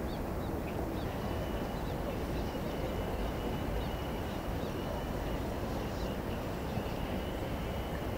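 Steady outdoor background noise with faint, repeated chirps of small birds.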